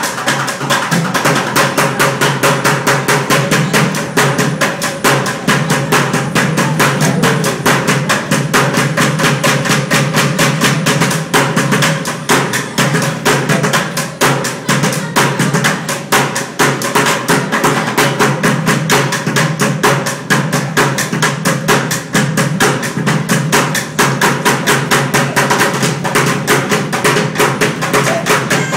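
Street bucket drumming on upturned plastic buckets: a fast, unbroken stream of hits.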